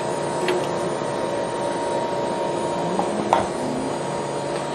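Emery Thompson CB-350 batch freezer running steadily with its dasher and refrigeration on as a batch of ice cream finishes freezing. A couple of light clicks come about half a second and three seconds in.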